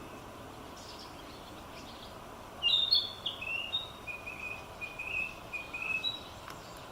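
Narcissus flycatcher singing: one song phrase beginning about two and a half seconds in, loud and high at first, then a run of shorter, lower notes, closing with a brief high note.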